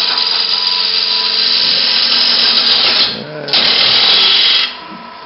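Bowl gouge making a pull cut on a wooden bowl blank spinning on a wood lathe: a loud, steady hiss of wood being cut. It stops for a moment about three seconds in, resumes, and stops shortly before the end as the tool comes off the wood.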